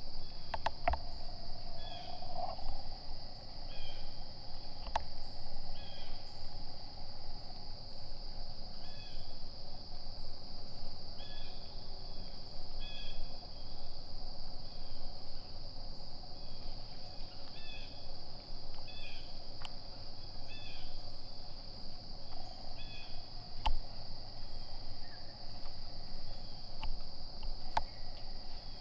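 Woodland insects droning steadily on one high pitch, with short bird chirps coming and going over it. A few sharp clicks or snaps break in, the loudest about three quarters of the way through.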